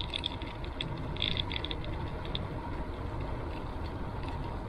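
Bicycle freewheel ticking in short runs while the bike coasts, over a low steady rumble of wind and tyres on the road.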